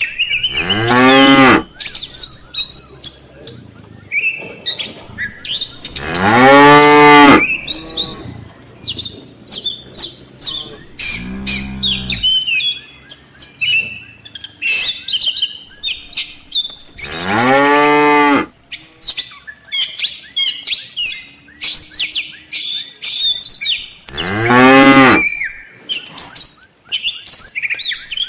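Cattle mooing, five long moos a few seconds apart, one of them lower and shorter, with birds chirping throughout.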